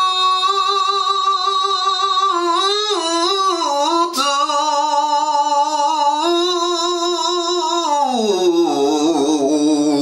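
A man's voice holding one long, loud note through hands cupped around his mouth, like a holler. The pitch stays level, wobbles a few seconds in, drops lower near the end, then swoops up.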